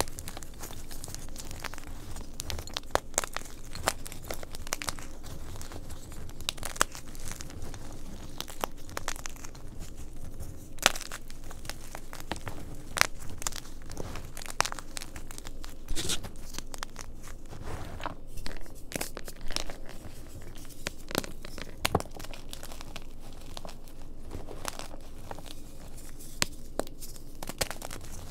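Blocks of gym chalk being snapped and crushed by hand into a heap of chalk chunks and powder: crunchy, irregular crackling with frequent sharp snaps.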